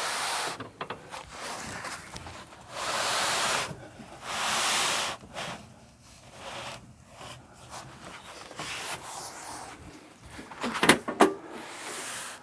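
Gear being slid across and set down on a carpeted truck bed mat: several long scuffing slides in the first five seconds, scattered light knocks, and a louder clatter about eleven seconds in.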